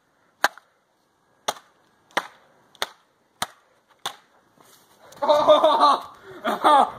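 A run of six sharp smacks, evenly spaced about two-thirds of a second apart, as something is struck over and over. A voice breaks in loudly about five seconds in.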